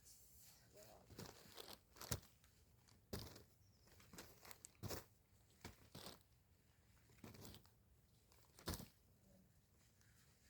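Faint, scattered rustling and crackling of garden plants and leaves being handled, in about a dozen short, irregular bursts.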